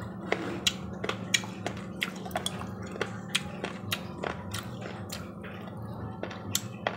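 A person chewing a mouthful of octopus curry, with many irregular sharp wet mouth clicks and smacks over a steady low hum.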